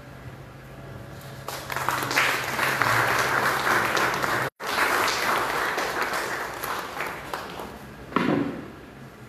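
Audience applauding, swelling about a second and a half in. The applause cuts out for an instant midway, then tapers off near the end, with one brief louder sound just before it fades.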